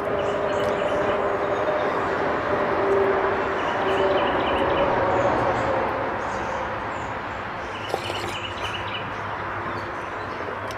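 Small birds chirping in a few brief bursts, about two seconds in and again about eight seconds in, over a loud steady rumbling noise with a low hum.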